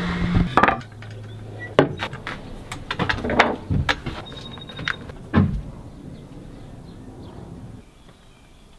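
Scattered knocks and clunks of someone moving about a wooden sailboat's cabin and companionway, over a low steady hum that stops near the end.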